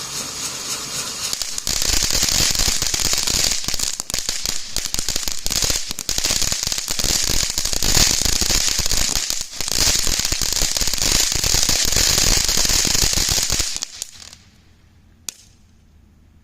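Spinning fountain firework spraying sparks with a dense crackling hiss that grows louder about two seconds in, then dies away about fourteen seconds in as it burns out. A single sharp click follows shortly after.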